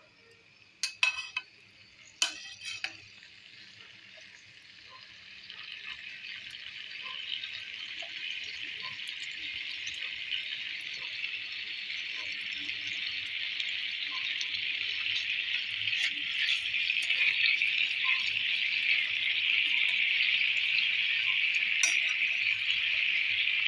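A few sharp clinks of a steel ladle against a nonstick pan in the first seconds, then the sugar syrup around gulab jamuns starts to sizzle and bubble as it heats. The hiss grows steadily louder from about four seconds in.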